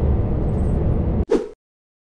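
HGV cab road and engine noise, a steady low rumble, which cuts off abruptly a bit over a second in. A brief, loud burst of noise follows, louder than the rumble, and then dead silence.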